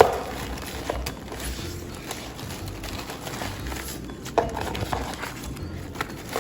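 A box and its packaging being opened and handled by hand: rustling, with a few sharp taps and clicks.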